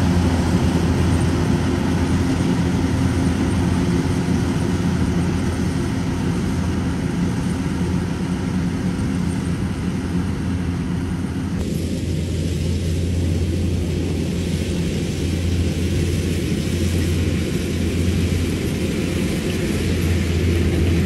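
Diesel engine of a Kubota DC-105X combine harvester running steadily through its aftermarket Cambodian-style exhaust pipe, a constant low hum. About halfway through, the sound abruptly turns duller, losing much of its higher hiss.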